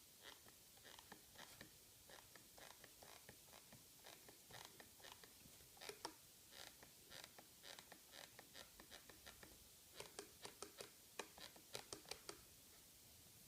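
Microsoft Designer Bluetooth Mouse creaking and clicking as a palm rests on it and presses the left button: a long run of short, sharp creaks, quicker about ten seconds in, then stopping. The creak is a build-quality defect of the mouse's shell, which began after a month of light use.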